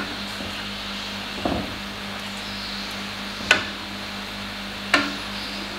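Wooden spatula stirring apricots in simmering jaggery syrup in a non-stick wok, knocking sharply against the pan about four times over a steady hiss from the cooking pan.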